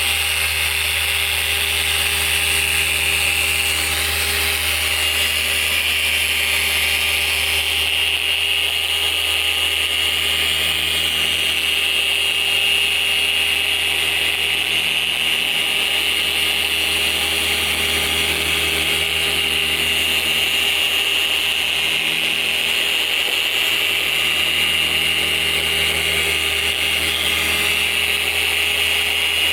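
Electric car polisher running steadily at a constant speed, with a steady high whine over a low hum, as it works compound into black car paint to remove swirl marks.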